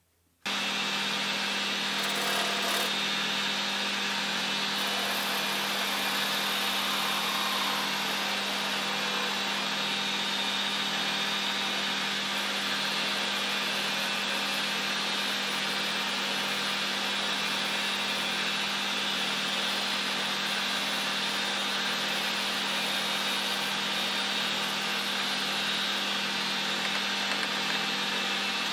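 Metal lathe running and turning a bar of aluminium stock, a steady drone with a low hum that starts abruptly at a cut.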